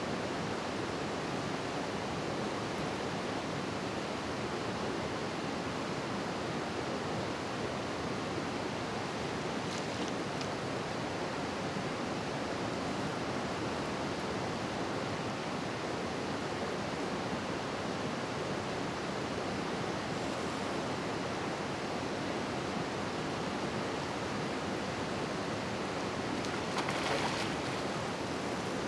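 Steady rush of flowing river water, with a brief louder burst of noise near the end.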